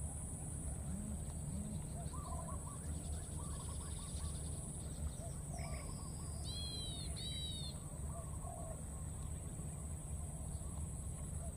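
Outdoor ambience of birds calling: faint short calls scattered throughout, two louder high-pitched calls in quick succession about halfway through, and a steady high-pitched hum underneath.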